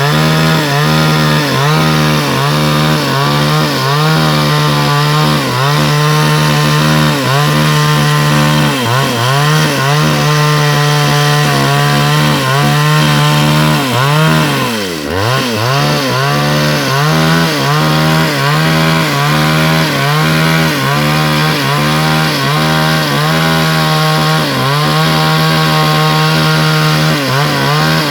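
Two-stroke chainsaw held at high revs while cutting through wood, its pitch dipping briefly about once a second as the chain bites and recovering, with one deeper bog about halfway through. The engine still pulls strongly under the load.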